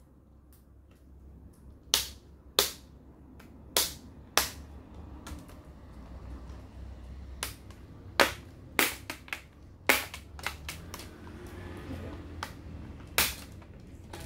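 Plastic front bezel of a Toshiba Satellite C660 laptop screen being pried off by hand, its snap clips popping free. There are over a dozen sharp snaps at uneven intervals.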